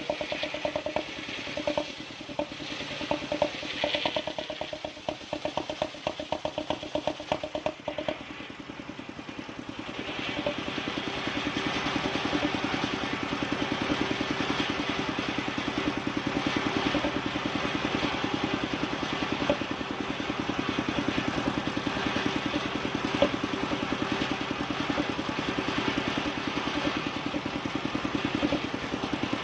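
Small engine of a wood-sawing machine running with an even pulsing beat, becoming louder and steadier about ten seconds in.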